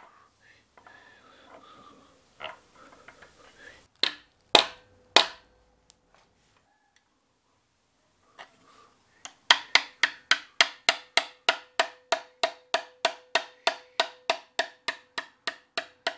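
Small hammer tapping a 4 mm hardened steel dowel pin through the crankshaft pulley into the crank nose of a VAG 1.8T/20vT-based engine: three firm blows, then a long run of quick even taps, about four a second, each with a short metallic ring. The pin is being driven home to lock the pulley onto the crank.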